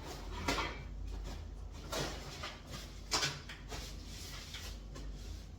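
A cooking-oil bottle being handled and wiped down: three short rubbing, scuffing sounds about half a second, two and three seconds in, over a low steady hum.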